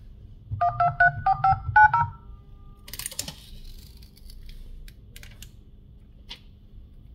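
Dial-pad keypad tones from a Xiaomi Redmi 12C's phone dialer: seven quick two-tone beeps as the digits are tapped in on its newly fitted display. A short rustle follows about a second later, then a few light clicks.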